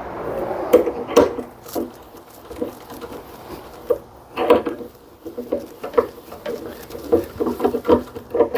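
Irregular clicks and clunks of hand work on a 3.5 hp Briggs & Stratton mower engine's seized recoil starter clutch as it is oiled and worked loose. The knocks come thicker near the end.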